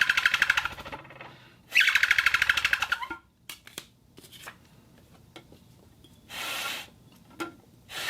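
Homemade glass-bottle and metal-plate whistle giving a high, rapidly fluttering warble, in two bursts in the first three seconds, followed by a few small clicks and a short hiss.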